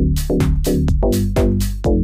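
Electronic drum loop at 125 BPM, with a kick on every beat and hi-hats between, and a synth bass line played over it as it is recorded into a MIDI clip.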